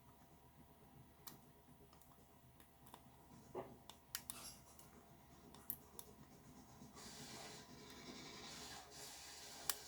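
Faint, scattered clicks and light scratching of a hook pick working the pin stack inside a pin-tumbler euro cylinder lock as it pushes pin 5 up toward setting, with soft rubbing from about seven seconds in and a sharper click near the end.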